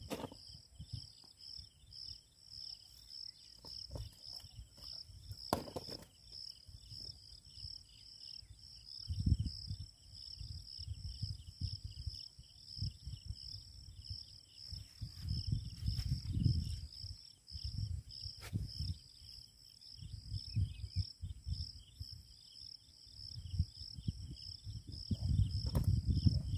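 Insects chirring steadily in a high, fast-pulsing trill, with irregular low rumbles of wind buffeting the microphone and a couple of sharp clicks.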